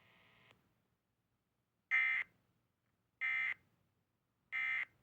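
EAS/SAME digital data bursts from a NOAA Weather Radio broadcast: three short, identical buzzy chirps about 1.3 s apart. Their short length and triple repeat after the spoken test message mark them as the end-of-message code that closes the Required Weekly Test. A faint steady tone fades out about half a second in.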